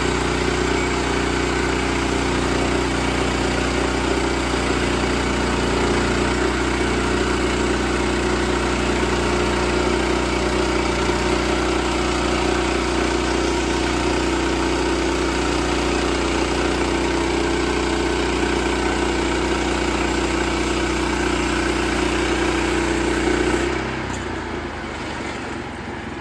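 Sawmill engine running steadily at working speed, then about two seconds before the end it drops off and settles to a lower, quieter running.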